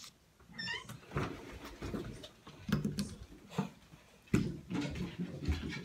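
Handling noise from a handheld phone being moved about: scattered knocks and rustles, with one short, wavering squeal about half a second in.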